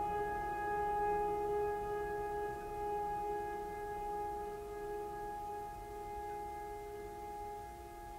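Background music: a held chord of steady sustained tones, slowly fading.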